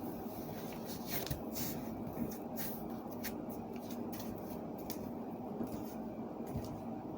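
Irregular small clicks and rustles of craft materials being handled and set down on a tabletop, over a steady low background hum.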